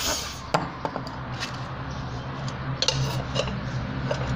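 Steel tyre levers clinking and scraping against a scooter's aluminium rim as the rim is prised out of the tyre: a handful of sharp metallic clicks, the loudest about half a second in and again near three seconds. A short spray hiss at the very start, and a low steady hum underneath that grows toward the end.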